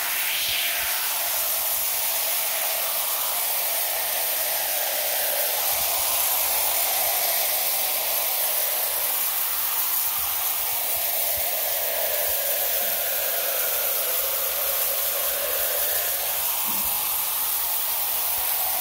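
Kwazar Orion hand-pump foam sprayer hissing steadily as it sprays thick foam out through its black foam filter nozzle.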